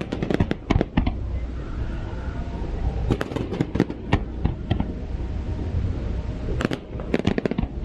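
Aerial fireworks bursting: three clusters of rapid sharp cracks, near the start, in the middle and near the end, over a steady low rumble.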